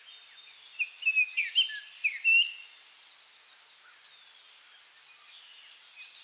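Tropical forest ambience: birds chirping in a quick run of short calls about a second in, over a steady high insect drone.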